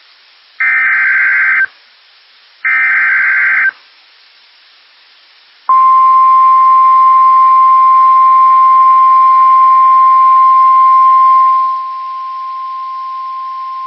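Emergency Alert System SAME header on NOAA Weather Radio: two short bursts of screeching digital data, about a second each and a second apart. About six seconds in, the steady 1050 Hz weather radio warning alarm tone starts, loud over a layer of radio hiss. The hiss falls away about twelve seconds in while the tone continues.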